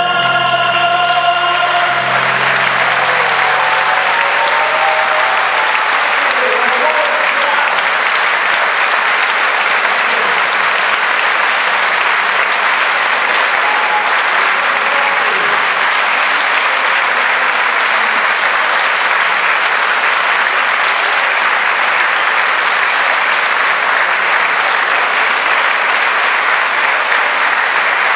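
A held sung note ends about two seconds in, and a large audience breaks into steady, sustained applause.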